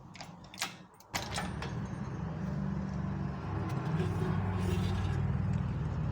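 A few light clicks and knocks, then about a second in a low, steady motor drone starts suddenly and keeps running.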